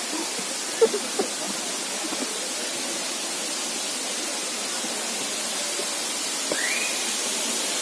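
Steady rush of falling water, with a few faint knocks about a second in and a short chirp near the end.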